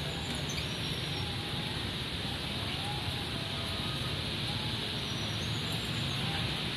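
Steady hiss of heavy rain, with a few faint high chirps.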